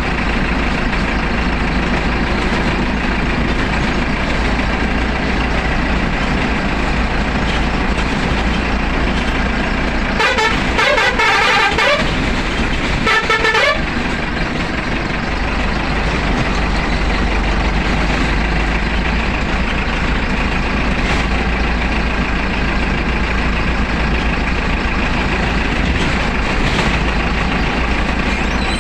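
Bus engine running steadily while driving, heard from inside the driver's cab. About ten seconds in the horn sounds for a second or two with a wavering pitch, then once more briefly.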